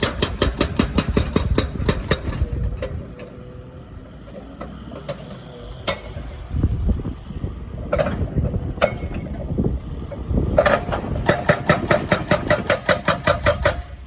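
Excavator-mounted hydraulic breaker hammering at about six blows a second, stopping after about two and a half seconds. The excavator's engine runs on with a few scattered knocks, then the breaker starts hammering again about ten and a half seconds in and keeps going until near the end.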